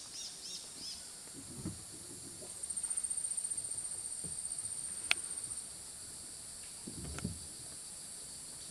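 Rainforest insects calling in a steady high chorus, with one insect's rapid pulsing trill standing out for about three seconds in the middle. Four short high chirps sound in the first second, and there are a few soft low thumps.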